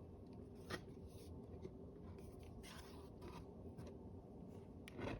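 Faint rustling of a picture book's paper pages being handled, with a soft click just under a second in.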